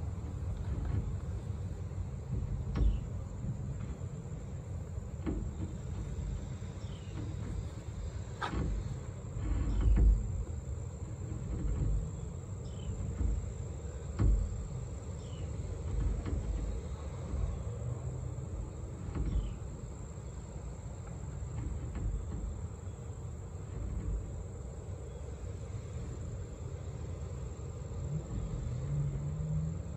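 Outdoor ambience: a steady high insect trill over a low rumble. Scattered soft bumps and rustles come from handling the knife and its leather sheath, the loudest about ten seconds in.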